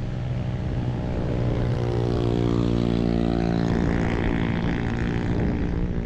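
Motorcycle engine running steadily while riding, with a hiss of wind and road noise.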